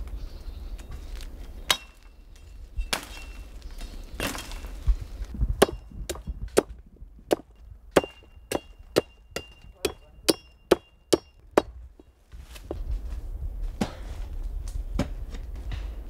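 A blade chopping wooden stakes to a point against a log: a few scattered strikes, then a quick run of sharp chops about two a second, several with a short metallic ring, stopping about three-quarters of the way through.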